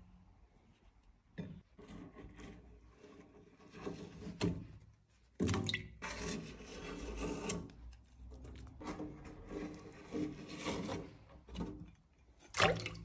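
Metal scraper blade scraping thick built-up candle wax off the rims of wax vats, in a run of uneven scrapes. Two strokes, one about midway and one near the end, are sharper and louder than the rest.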